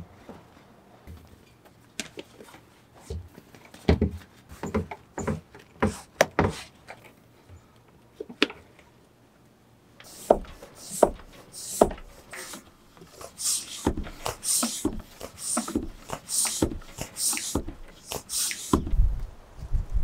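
Mountain bike tyre worked onto its rim by hand, with scattered knocks and rubs of rubber and metal. From about halfway, a floor pump inflates it: an even run of strokes, about one and a half a second, each with a hiss of air. A few low thumps near the end.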